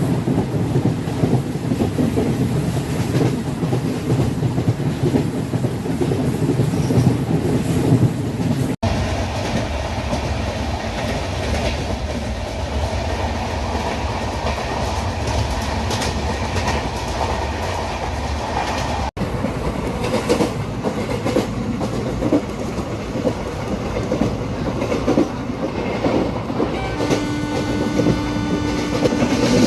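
Indian Railways ICF passenger coach running along the track, heard from the open doorway: a continuous rumble with wheels clattering over the rail joints. The sound cuts out for an instant twice, and a steady pitched tone joins near the end.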